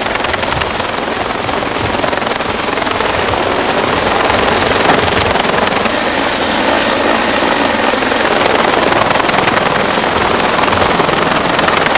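Helicopter hovering close overhead during a winch rescue: a dense, steady rotor and engine noise.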